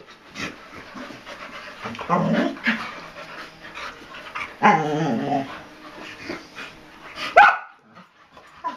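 Keeshond and Lapphund dogs play-fighting, giving growls and barks in short bursts, with a sharp rising yip about seven seconds in.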